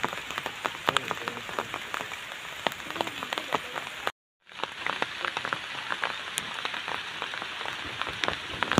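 Steady rain falling, a constant hiss dotted with many sharp drop hits. The sound cuts out for a moment a little over four seconds in, then the rain carries on.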